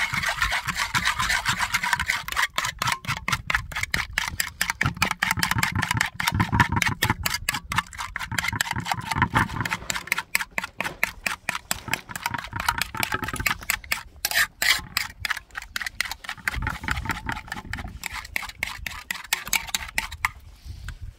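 Metal spoon beating raw eggs in an aluminium pan, rapid even strokes scraping and clicking against the metal, stopping about a second before the end.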